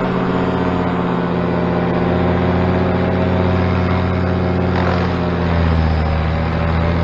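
Paramotor's two-stroke engine and propeller running steadily in flight. About five seconds in the sound changes, with a brief sweep in pitch and a stronger low hum after, which the pilot takes for one end of the new tape on the propeller tip coming off.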